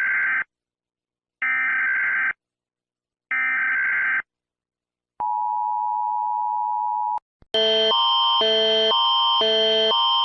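Emergency Alert System signal: three short, buzzy data bursts of the SAME header, each about a second long with a second's gap, then a steady alert tone for about two seconds. After a click, a different, louder alert tone starts about seven and a half seconds in, switching back and forth between two pitches about every half second over a steady high tone.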